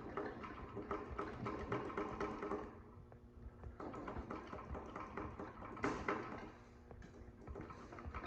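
Ratchet wrench clicking in quick runs during an engine teardown, stopping briefly twice.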